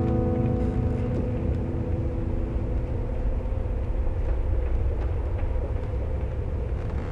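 A deep, steady rumble, with the held tones of a sustained musical chord fading out over the first second or two.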